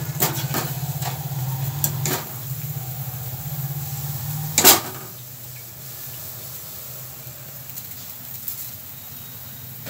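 Wire spider strainer scraping and clinking against a steel kadai as fried garlic is scooped out of the oil, with a few light knocks and one sharp clank about halfway through. A low steady hum runs underneath and fades after the clank.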